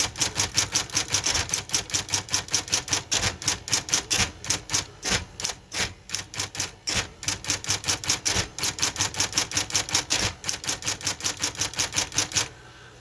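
Smith Corona electric typewriter being test-typed: rapid, even keystrokes, about six a second, over the steady hum of its running motor, stopping shortly before the end.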